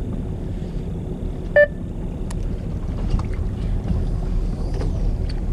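Fishing boat's engine running with a steady low rumble, and a single short beep about a second and a half in.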